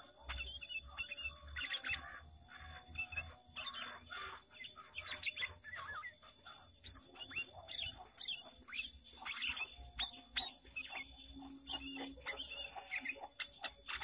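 Sooty-headed bulbul (kutilang) singing a fast, varied run of short chirps and whistled phrases, some notes gliding up or down.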